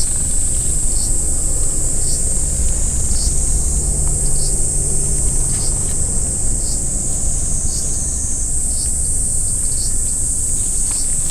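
Outdoor ambience: a continuous high insect drone with short chirps about once a second, over a steady low rumble.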